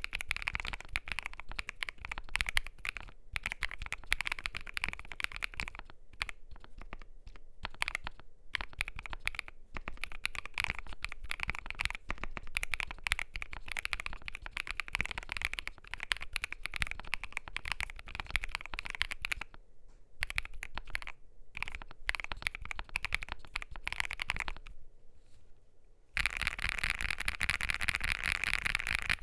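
Continuous typing on a CIDOO V87 mechanical keyboard with lubed, filmed CIDOO Mint linear switches, a polycarbonate plate and foam mods: a steady patter of keystrokes with a few short pauses. Near the end the typing turns faster and louder.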